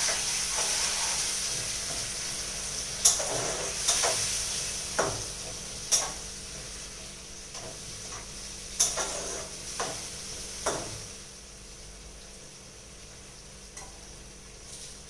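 Onion-tomato masala with powdered spices sizzling in a pot just after a splash of water was added to keep the spices from burning; the sizzle slowly dies down. A spatula knocks and scrapes against the pot about seven times between about three and eleven seconds in.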